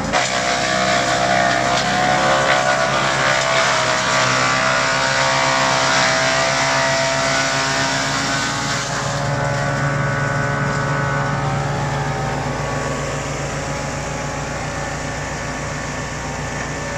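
Tracked wood chipper running, its engine and cutting drum shredding leafy branches, with the engine pitch wavering as the wood is fed in. The sound changes abruptly about nine seconds in and becomes steadier.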